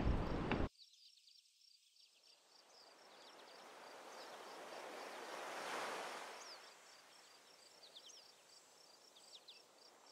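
Faint ocean surf: a wash of breaking waves swells to a peak about six seconds in and then ebbs, with short high chirps above it. A louder burst of noise at the very start cuts off suddenly under a second in.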